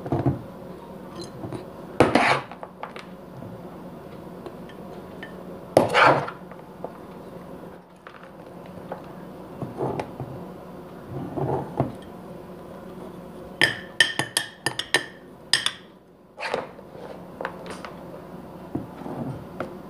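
A glass jar being packed with grated papaya pickle: scattered clinks, knocks and scrapes against the glass, with a louder scrape about two seconds in and another about six seconds in, and a quick run of sharp clicks about two-thirds of the way through.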